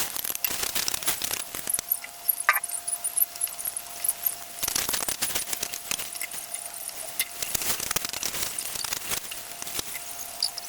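Kitchen utensils clinking and scraping against cookware in an irregular run of sharp metallic ticks, with a brief squeak about two and a half seconds in and a faint steady hum underneath.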